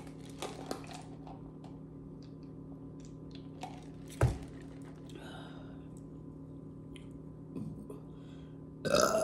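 Quiet eating sounds: soft mouth and chewing clicks over a steady low hum, with one sharp thump about four seconds in. A burp starts right at the end.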